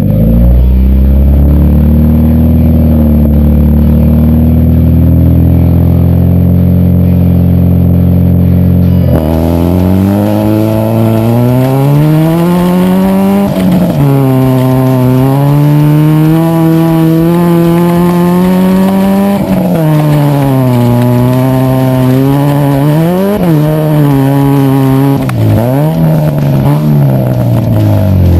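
Nissan Sentra Spec-V's 2.5-litre four-cylinder engine heard from inside the car, first held at steady revs. About nine seconds in, it suddenly launches and revs up and down repeatedly through gear changes and throttle lifts on a gravel rallycross course.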